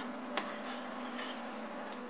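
A metal spoon stirring dry rice and wheat flour in a bowl: soft scraping with a couple of light clicks of the spoon against the bowl, over a steady low hum.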